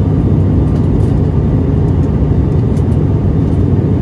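Steady low rumble of an airliner's cabin in climbing flight: engine and airflow noise heard from a window seat over the wing.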